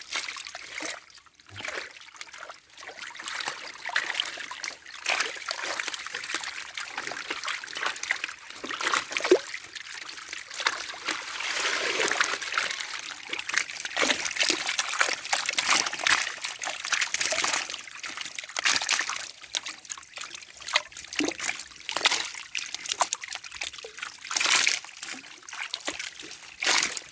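Pond water splashing and dribbling in many small, irregular splashes.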